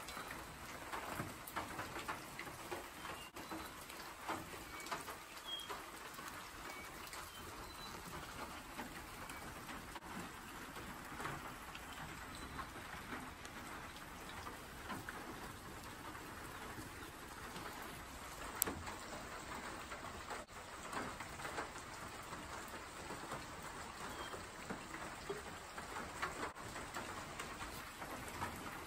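Steady rain falling on foliage, with many scattered drips. A few faint, high bird chirps and one sharp tap about two-thirds of the way through.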